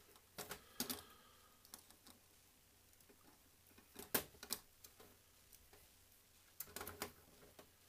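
Light clicks and knocks of a metal model locomotive shell and chassis being handled and fitted together, in small clusters about a second in, around four seconds in and near the end, with quiet room tone between.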